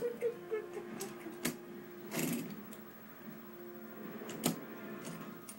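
A toy train engine rolled along a wooden track, its wheels rattling, with a few sharp knocks as it bumps the track, the loudest about four and a half seconds in. A faint steady tone runs underneath.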